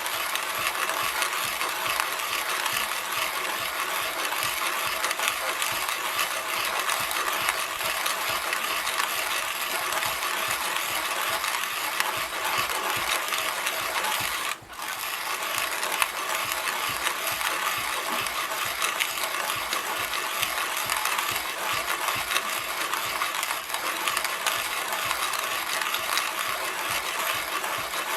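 Zassenhaus Brasilia hand coffee grinder grinding beans as the crank is turned: a steady, dense grinding noise, broken off briefly about halfway through.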